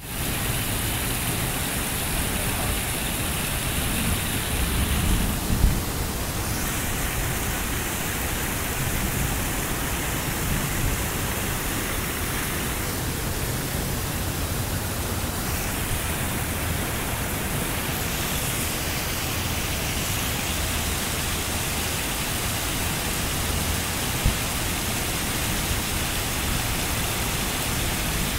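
Creek in flood at over 4800 cfs, brown water rushing and churning white over rock ledges in a steady, loud roar of whitewater. There are a few low bumps about five seconds in.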